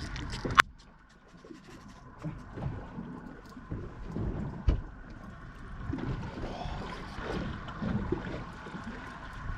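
Water slapping and lapping against the hull of a small fishing boat at sea in uneven washes, with a sharp click about half a second in.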